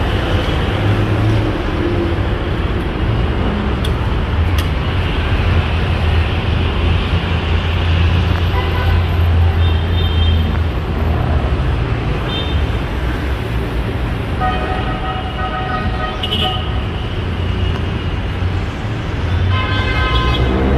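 Busy city street traffic, a steady low rumble of vehicles, with several short vehicle horn toots in the middle and a longer one about two-thirds of the way through.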